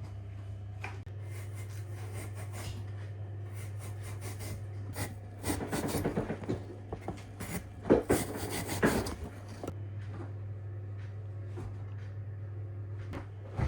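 A steady low hum, with a few seconds of rubbing, clattering and knocks in the middle, two sharper knocks being the loudest.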